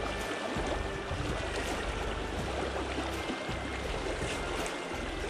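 Creek water rushing through a shallow riffle: a steady, even rushing noise.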